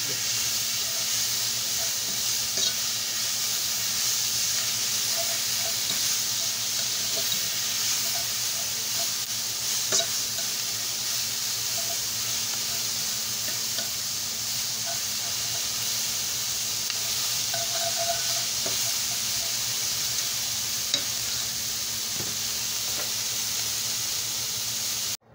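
Sliced onions and green and red bell peppers sizzling as they sauté in pork drippings in a metal skillet, a steady frying hiss with a few light clicks from stirring. The sound cuts off suddenly near the end.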